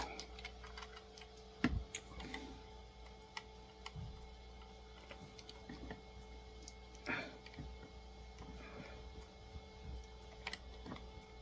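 Small screwdriver clicking and scraping against a stuck screw in the base of a die-cast toy car, in scattered light taps with a few sharper clicks.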